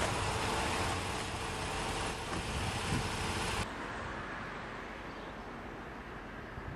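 Road traffic noise from a passing vehicle, easing off, then an abrupt cut about three and a half seconds in to quieter outdoor background noise.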